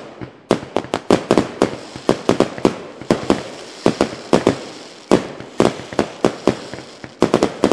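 A run of sharp cracks and pops, several a second at uneven spacing, each with a short echoing tail.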